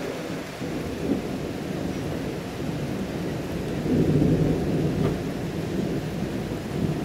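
Steady rain falling, with a low rolling rumble of thunder that swells about four seconds in and then fades back.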